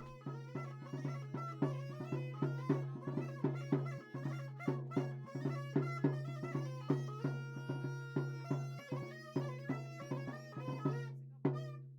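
Tsambouna, the Mykonos goatskin bagpipe with double reed pipes, playing a lively folk tune over a steady low note, with a drum beating about three strokes a second.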